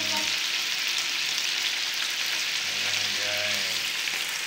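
Chicken satay skewers sizzling on a hot Teflon-coated grill pan, a steady frying hiss from the meat and marinade.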